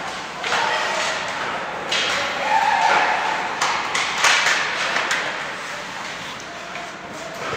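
Ice hockey game in a rink: sharp clacks of sticks and puck, several of them close together around the middle, over a steady wash of skates on the ice and spectators' voices.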